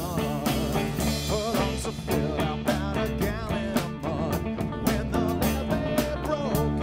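A live band playing, with a steady beat under steady low notes and a lead melody line that bends and wavers in pitch.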